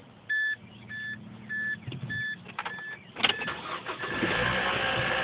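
Dashboard chime beeping five times, about 0.6 s apart, then a click as the starter cranks the 2004 Mazda 3's 2.3-litre four-cylinder. The engine catches about four seconds in and runs with the timing chain racket the owner calls loud and annoying.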